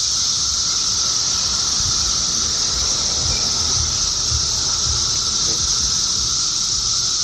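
Chorus of periodical cicadas: a loud, steady, high-pitched drone without a break, with a fainter, lower steady whine beneath it.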